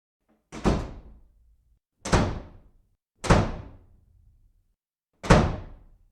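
Four heavy bangs at uneven intervals, each dying away over about half a second.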